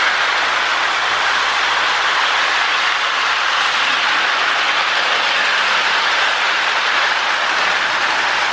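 Lionel 1666 model steam locomotive running steadily around three-rail tinplate track pulling cars: an even whirring rumble of its electric motor and metal wheels on the rails.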